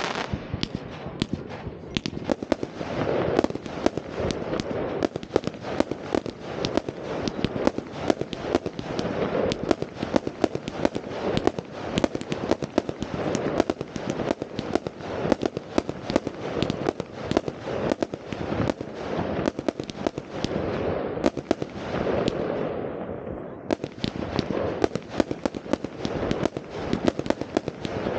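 New Year's Eve fireworks: many rockets and firecrackers going off at once, a dense, unbroken stream of bangs and crackles over a continuous rumble.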